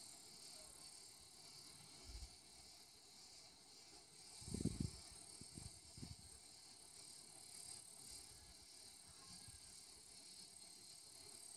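Near silence with faint, steady insect chirring in the background. A few soft low thumps come a little before the middle and again shortly after.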